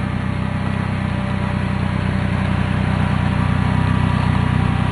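Engine of a BMS Ranch Pony 1000 side-by-side UTV running steadily as it drives over dirt, getting gradually louder as it pulls up close.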